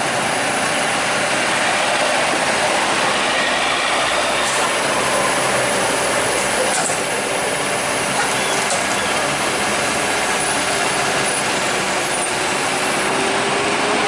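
Diesel engine of a Kobelco SK200 hydraulic excavator running steadily while it holds a Sakai tandem roller, over a dense, even noise.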